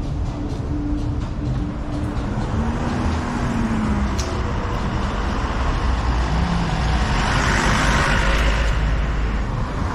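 Street traffic: car engines and tyres on asphalt, building up as a box truck passes close, loudest about three quarters of the way through.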